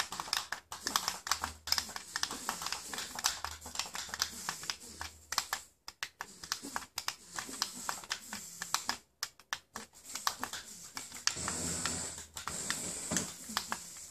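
Rapid, irregular clicking from remote-control air swimmer fish balloons being steered, with faint low voices now and then.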